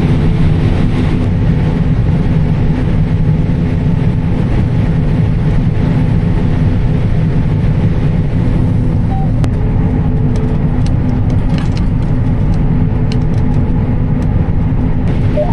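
Combine harvester running steadily at harvest, a constant low drone with a steady hum, and a few faint ticks in the second half.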